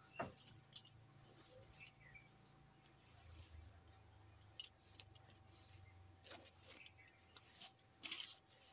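Near silence with faint, scattered rustles and small clicks of saree cloth being handled and folded.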